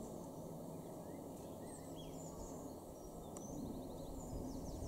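Faint outdoor background: a steady low rumble with small birds chirping now and then, including a short rapid trill a little past the middle.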